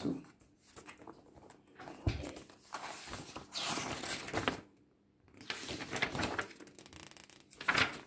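Thick paper pages of a handmade junk journal rustling as they are turned by hand, in several bursts, with a soft thump about two seconds in.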